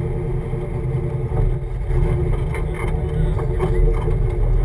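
Jeep engine running steadily at low speed as the vehicle creeps forward onto a dirt trail, a continuous low drone heard from close by.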